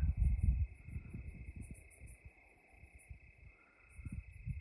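Night crickets chirping in one steady, unbroken trill, under a low, uneven rumble that is loudest in the first second and comes back near the end.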